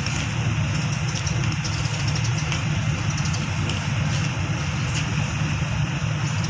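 An engine idling steadily, a continuous low hum with a hiss above it.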